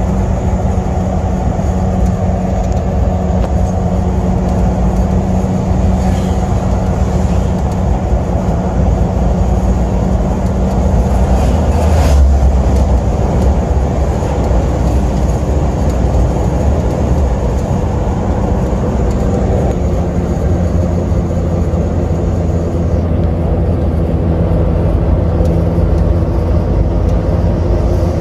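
Engine and road noise inside the cab of an Asia Towner mini truck cruising on a highway, a steady drone whose engine note changes about two-thirds of the way through. A brief louder swell about twelve seconds in as another vehicle passes close alongside.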